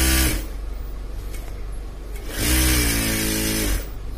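Juki DDL-8700 single-needle lockstitch industrial sewing machine running in two bursts. A short one winds down just after the start, and a longer one of about a second and a half begins about two and a half seconds in. Each quickly rises to speed, holds, then winds down. It now runs normally after resistor R26 was removed from the power board to clear error 924.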